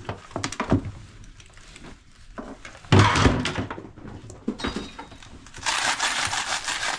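Rummaging through clothes and objects in a trunk: fabric rustling and items knocking. There is a loud clatter about three seconds in, then a dense rattling rustle near the end.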